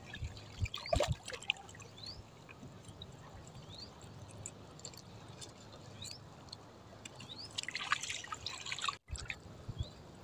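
Faint water dripping and light splashing: small drops falling into shallow sea water, with a brief cluster of splashes about eight seconds in.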